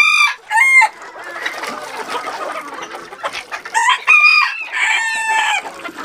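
Chickens clucking while roosters crow, with loud crows at the very start and again about four to five seconds in.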